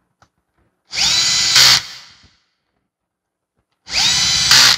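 Cordless drill-driver running twice, about a second each time, driving screws into the gear housing of a Bosch GPO 12 CE polisher. Each run's pitch rises as the motor spins up, and each ends in a brief louder, harsher burst.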